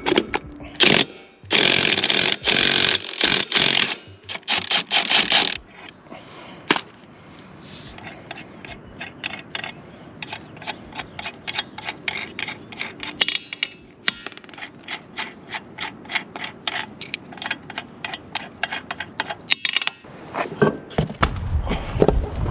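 Tools working on a zero-turn mower's wheel: a few loud bursts from a power tool in the first few seconds, then a long run of rapid, even clicking like a hand ratchet.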